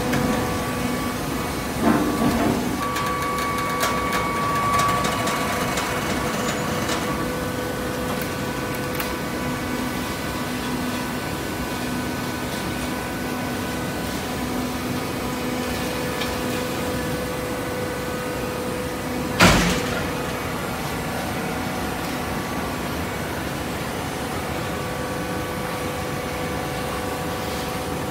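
Hydraulic waste paper baler running with a steady, humming drone, with a few knocks about two seconds in and one sharp bang about two-thirds of the way through.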